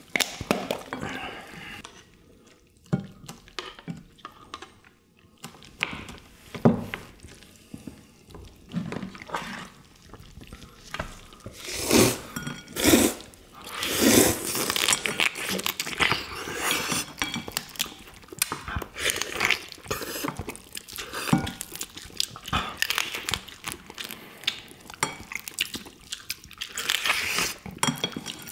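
Utensils clinking against ceramic bowls and plates at a meal of soy-sauce marinated crab (ganjang gejang), along with the crab being pulled apart by gloved hands. The clinks come scattered and get busier about halfway through.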